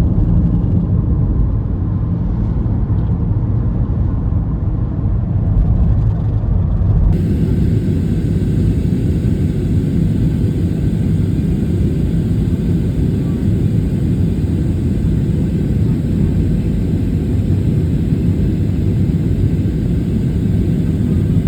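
Steady low rumble of road and engine noise inside a moving car, with no distinct events. About seven seconds in the sound changes abruptly and a faint hiss joins the rumble.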